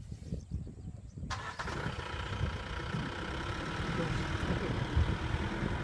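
A motor vehicle's engine starts suddenly about a second in and then runs steadily.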